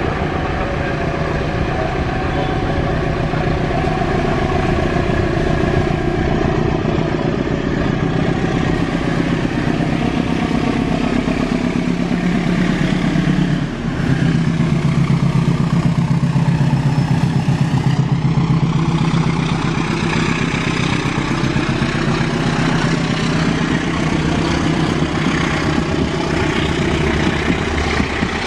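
KAI diesel-electric locomotive's engine running with a steady drone as it hauls a passenger train past, growing louder about halfway through as the locomotive comes closest. After that, the carriage wheels rolling along the rails take over.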